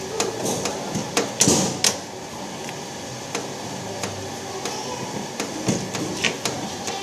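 Irregular clicks and knocks of hands working with hardware, with a louder clatter about one and a half seconds in.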